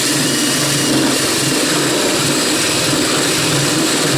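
A drill running a wood-cutting hole saw through the thin sheet-metal door skin of a 1992 Chevy Astro van: the drill motor runs loud and steady while the saw teeth cut the metal.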